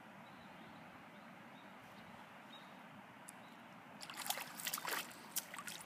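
A hooked fish splashing and thrashing at the water's surface, a quick cluster of sharp splashes starting about four seconds in and lasting a couple of seconds. Before it there is only a steady faint hiss.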